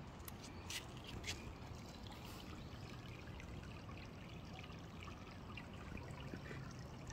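Small shallow woodland creek trickling faintly, with a few light clicks in the first second or so.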